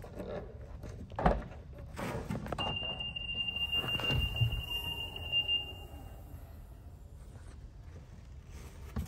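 Rear liftgate of a 2018 Mitsubishi Outlander being opened. There is a sharp thump about a second in. Then a steady high-pitched electronic warning tone sounds for about three and a half seconds, with a low knock as the gate goes up.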